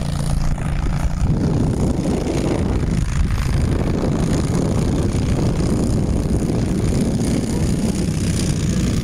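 Wind buffeting the camera microphone: a loud, uneven low rumble. A steady low hum sits under it until about a second in.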